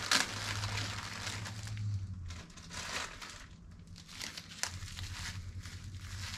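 Clear plastic bag crinkling and crackling as it is handled and opened around a small salt shaker. The crinkling is busiest in the first two seconds, with a sharp crackle right at the start, then thins to scattered crinkles.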